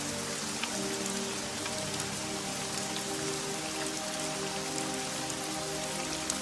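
Steady rain, a dense patter of drops, over soft music of long held low notes that shift every second or so.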